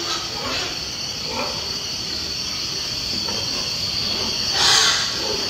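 Pigs jostling in a crowded pen with grunts and rasps over a steady high-pitched whine, and a louder harsh squeal-like burst near the end.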